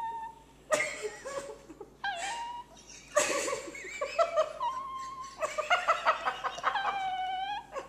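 Small dog making repeated high-pitched whines and squeals that bend up and down while tugging a toy against another dog. Short rough noisy bursts come between them, and one long drawn-out whine falls away in the last few seconds.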